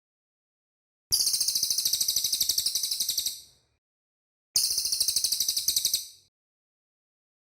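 Cililin songbird singing two rapid, very high-pitched trills, each a quick run of evenly repeated notes lasting about two seconds, separated by silence.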